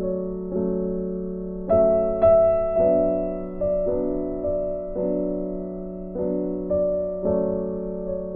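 Background music: slow piano chords, a new chord struck about once a second and each fading before the next.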